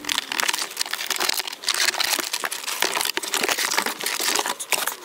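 Packaging being handled and pulled open during an unboxing: continuous crinkling and rustling with many small crackles and clicks.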